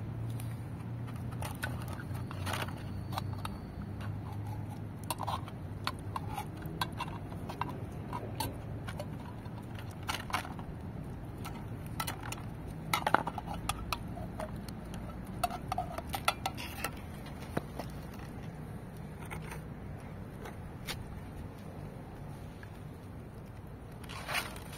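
Wet cat food being shaken and tipped out of an opened metal pull-tab can into paper trays: scattered clicks, clinks and light scrapes of the can and its dangling lid, loudest around the middle.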